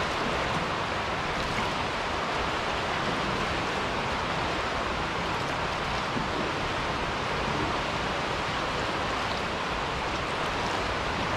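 Steady rushing noise of choppy water and wind around a kayak anchored among pier pilings, even throughout with no distinct splashes or knocks.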